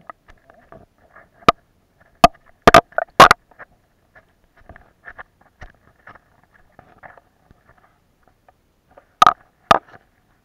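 Sharp knocks and clicks, a cluster of several about two to three seconds in and two more near the end, over faint, irregular crackling.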